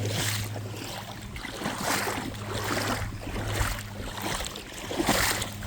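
Creek water sloshing in irregular soft surges over a steady low hum.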